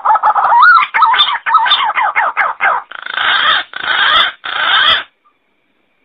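Green pigeon (punai) calling: a run of wavering whistled notes that bend up and down, then several quick falling notes, then three harsh, rasping phrases. The call stops about five seconds in.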